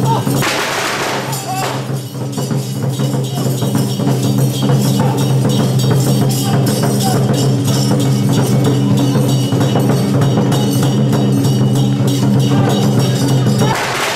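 Traditional Taiwanese temple percussion of drum, gongs and cymbals, the kind that accompanies a Song Jiang Zhen troupe, playing a fast, dense, continuous beat over a sustained gong ring. There is a louder crash about half a second in.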